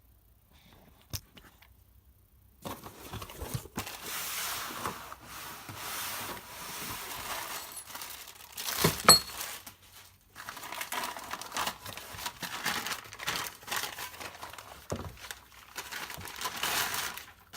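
Packaging being crumpled and torn during unpacking, starting about three seconds in and going on in bursts, with a sharp knock about nine seconds in.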